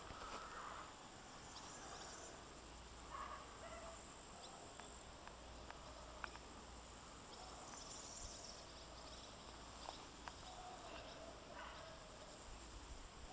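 Quiet outdoor ambience: a faint steady hiss with a few brief, faint chirps, such as of birds or insects, and some small clicks.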